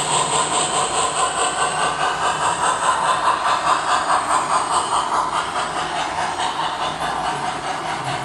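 Model DM&IR 2-8-8-4 Yellowstone steam locomotive's onboard sound playing steady steam chuffing, about four chuffs a second with a hiss, over a low hum. It fades slightly toward the end.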